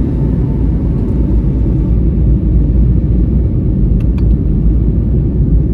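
Airliner passenger-cabin noise in flight: a steady low rumble of engines and rushing air. It cuts off suddenly near the end.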